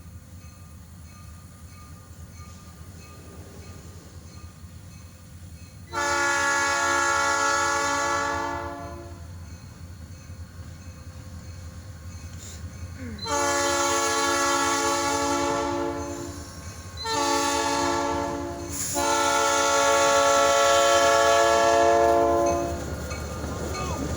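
Diesel locomotive air horn sounding the grade-crossing signal, long, long, short, long, as a chord of several notes. A steady low rumble from the locomotives runs under it.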